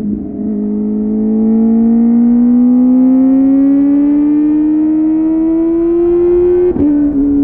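Kawasaki ZX-4RR's inline-four engine through a Yoshimura AT2 slip-on exhaust, pulling hard with its pitch rising steadily as the revs climb. Near the end the note breaks briefly and drops as it shifts up a gear.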